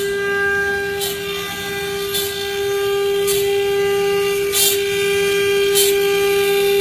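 Multi-spindle CNC wood carving machine running: a steady high whine from its spindles, with short hissing bursts about once a second.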